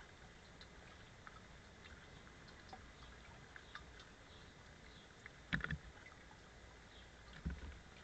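American robin splashing in a shallow bird bath: a short burst of splashing and wing flutter about five and a half seconds in, then a second, duller splash near the end.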